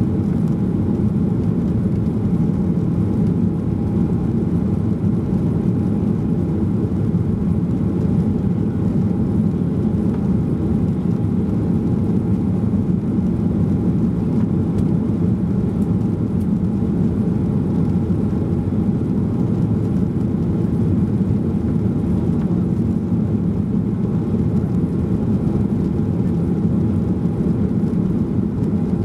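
Steady low rumble of a Boeing 737-800's CFM56 turbofan engines and the rushing airflow, heard inside the cabin from a seat behind the wing while the airliner climbs out just after takeoff.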